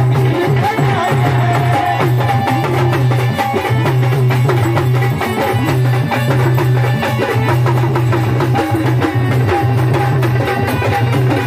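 Marathi gondhal folk music, an instrumental passage of rapid, steady drumming over a sustained low drone.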